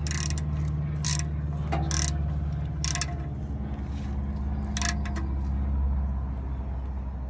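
Socket ratchet clicking in five short bursts, roughly a second apart, as a 14 mm socket snugs the oil drain plug back into the oil pan. A steady low hum runs underneath.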